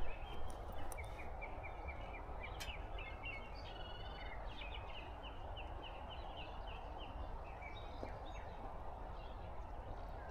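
Small birds calling in runs of short, quickly repeated chirps, about three or four a second, over a steady low background hum.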